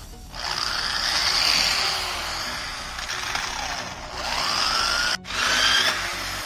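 Corded electric drill with a hole saw cutting a round hole into a wooden plank, the motor's pitch dropping and rising again as the saw bites. It cuts out for an instant about five seconds in, then runs on.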